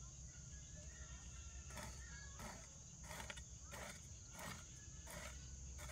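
Faint insects chirping: a steady high trill. Soft regular rustles or scrapes come about every two-thirds of a second from about two seconds in.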